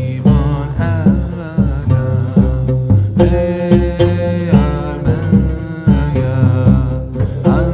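Background music with a steady beat, plucked strings and a wavering sung or bowed melody line.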